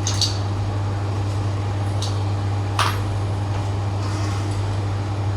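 Short hisses of refrigerant gas let out in brief puffs to flush the pipework, with a sharp snap just before three seconds in, over a steady low machine hum.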